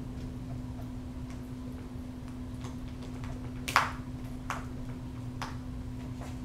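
Peregrine falcon tearing at quail meat with its beak: scattered short clicks and snips, the loudest about four seconds in, over a steady low hum.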